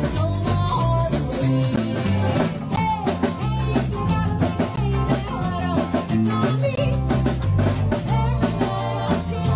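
Live band playing upbeat rock 'n' roll, with a walking bass line, guitar and drum kit.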